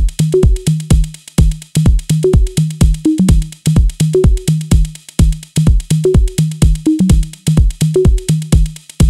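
Instrumental electronic dance music: a steady drum-machine beat with a heavy kick drum and a repeating bass line.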